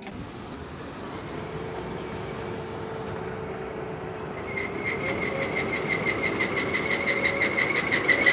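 Combine header running with a steady mechanical rumble, joined about four and a half seconds in by a high, rapidly pulsing squeal that grows louder. It sounds like a belt squalling; the cause is a broken section on the header's sickle.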